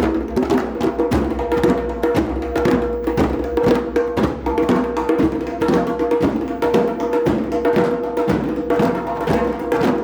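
Several drums beaten together by a group in a busy, steady rhythm of strikes, over a held tone.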